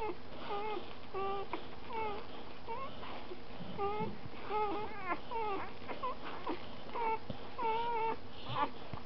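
Three-day-old Eurasier–Samoyed cross puppies squeaking and whimpering, a string of short wavering high squeaks coming every half second or so.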